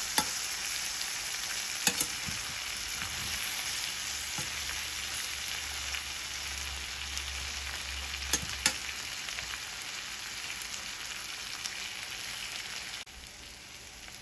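Bele fish and lemongrass sizzling in a stainless steel pan while a slotted spatula stirs and breaks up the fish, with a few sharp clicks of the spatula against the pan. The liquid is drying off so the fish can be crumbled into a dry bhuna. The sizzle drops suddenly about a second before the end.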